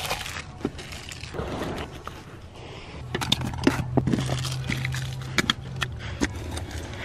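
Scraping, crinkling and clicking of things being handled and cleared out of a car's seats and floor.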